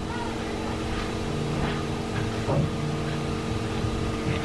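A man chewing a mouthful of roast chicken with his mouth closed, with faint soft mouth sounds over a steady electrical hum.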